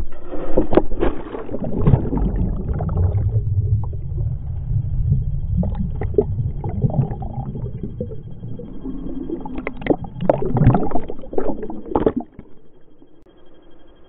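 Action camera plunging into a pool with a splash, then muffled underwater rumbling and gurgling. About ten seconds in, splashing breaks the surface again before the sound drops suddenly to a quiet hum.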